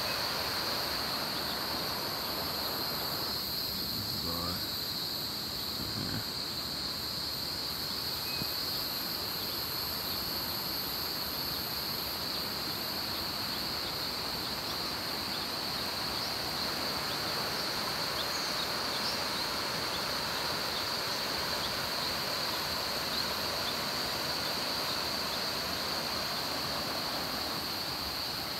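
River water rushing steadily over rocks and a low weir, with a constant high-pitched insect drone.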